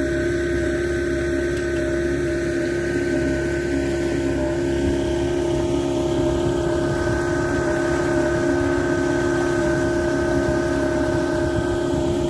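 A small boat's motor running steadily under way, a constant droning hum with several held tones.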